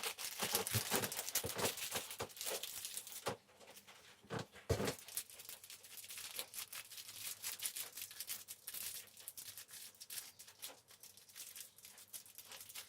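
Plastic bag crinkling and rustling as it is handled and pulled, dense for the first few seconds, then lighter scattered crackles with a brief louder rustle in between.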